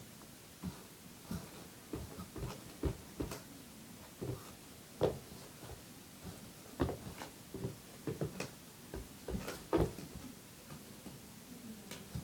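Dregs Paradox longboard flexing under a rider bouncing on it on carpet: irregular soft knocks and creaks from the deck and trucks, about one or two a second.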